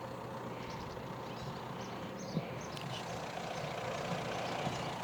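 Street traffic ambience: a vehicle engine running at a distance, getting slightly louder over the last couple of seconds.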